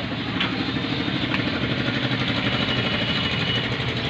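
A motor vehicle engine idling steadily with a low, even throb.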